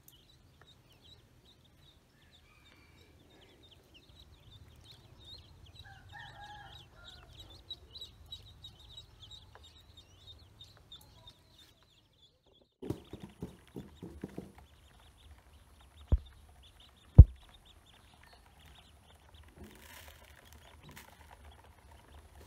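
Ducklings and chicks peeping rapidly and continuously in high thin notes, with a few lower chirps among them. About halfway through the peeping stops. A quick run of lower-pitched calls follows, then two loud sharp knocks about a second apart.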